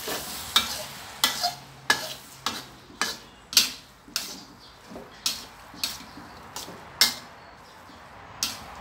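Spatula stirring and tossing glass noodles in a metal wok, clanking against the pan about every half second over a faint sizzle of frying.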